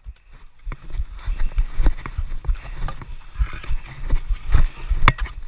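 Dek hockey play heard from a player-worn camera: irregular knocks and scuffs of sticks and shoes on the plastic tile court, with bumping and wind on the microphone, and a single sharp clack about five seconds in.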